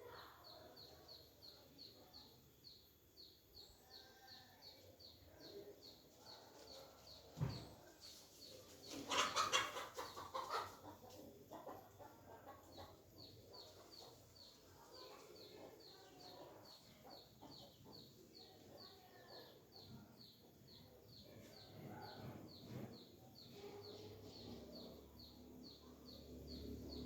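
Chickens clucking faintly, with one louder call about nine seconds in that lasts a second or so. Behind them a thin, high chirp repeats about twice a second.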